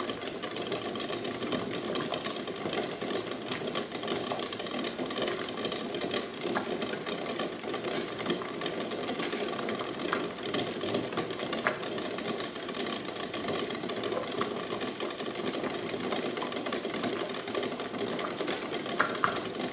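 Eggs rattling against a stainless steel pot and against each other as the water churns at a rolling boil: a fast, continuous clatter over the bubbling, with a few sharper clicks here and there.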